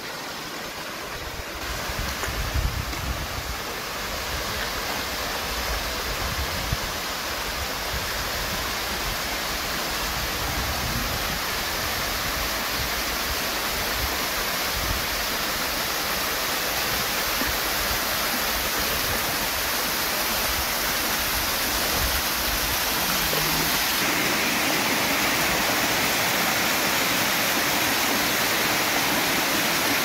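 Small waterfall cascading over limestone boulders: a steady rush of falling water that grows louder as the camera nears it. A few low bumps sound about two to three seconds in.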